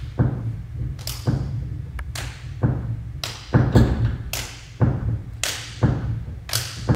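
Hands slapping skin in a run of about a dozen sharp, irregularly spaced smacks, over a low steady hum.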